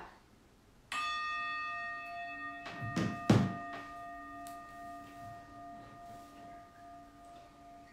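A phone meditation timer sounds a single bell chime about a second in, which rings on and slowly fades. Around three seconds in come two dull thumps, the loudest sounds, as a body settles forward onto the yoga mat and blocks.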